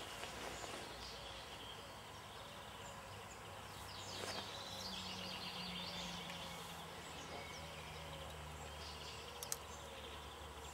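Outdoor ambience: a steady background hiss with faint bird chirps around the middle and a faint low hum in the second half. A single sharp click comes near the end.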